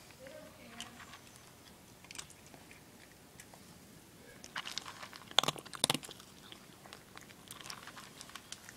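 A cat crunching dry kibble: irregular crunches and clicks, loudest in a quick cluster about halfway through.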